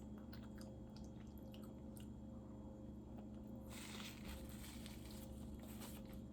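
Quiet, close-up mouth sounds of someone chewing food, with small wet clicks and smacks. A faint hiss joins about two-thirds of the way in.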